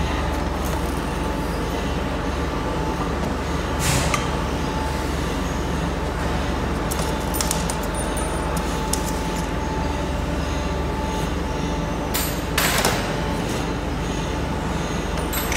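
Steady machinery noise with a low hum, broken by a sharp knock about four seconds in, a few light ticks a little later, and another knock about three-quarters of the way through.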